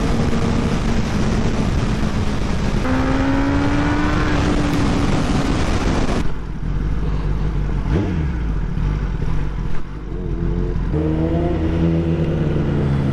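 Kawasaki ZX-10R inline-four engine running at speed under heavy wind noise, its note jumping up about three seconds in. The wind noise drops away suddenly midway, and near the end the engine note falls as the bike slows down.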